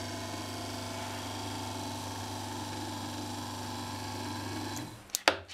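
Homemade brass case tumbler running, driven by a 12 V Fiat 600 wiper motor through a roller chain: a steady hum as the drum turns. It stops near the end and a couple of sharp knocks follow.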